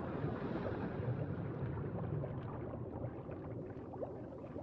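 Steady water noise with a low rumble.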